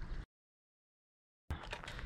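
Faint outdoor background with a low rumble and a few light clicks, broken about a quarter second in by over a second of complete silence where the sound track drops out, then resuming.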